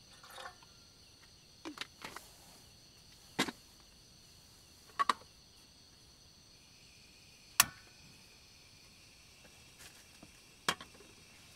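Portable gas canister stove being lit under a steel kettle: scattered sharp clicks and knocks, then a steady gas hiss starts about two-thirds of the way in, with the loudest single click just after it. Crickets chirr steadily throughout, and a last trickle of poured water ends right at the start.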